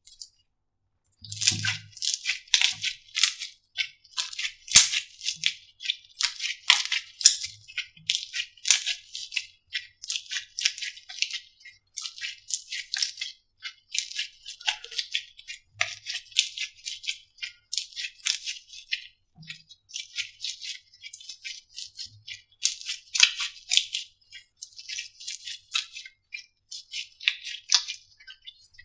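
Slime being squeezed and worked by hand, giving dense runs of crisp crackling clicks in bursts with short pauses between them, starting about a second in.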